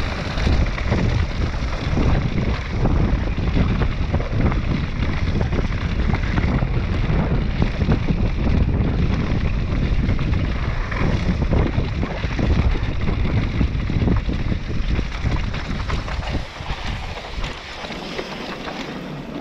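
Mountain bike descending a rough, rocky trail at speed, its frame and parts rattling and its tyres crunching over dirt and stones, with wind rushing over the microphone. The low rumble eases a little near the end.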